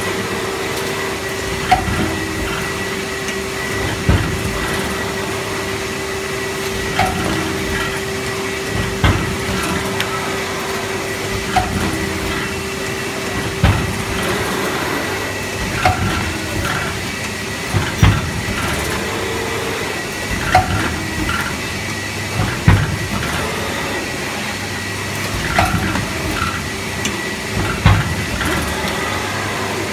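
HTQF 920T automatic carton box forming machine running, with a steady hum and a sharp knock about every two to two and a half seconds, one per stroke of the forming head. A steady tone in the hum drops away about halfway through.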